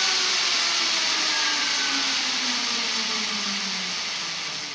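Yatri Project Zero electric motorcycle's rear wheel, raised on a stand, whirring as it spins down, its pitch falling slowly under a steady rushing noise and the sound fading gently toward the end.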